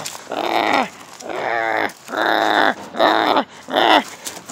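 A puppy growling in tug-of-war play over a rope toy: five short growls of about half a second each, with brief pauses between.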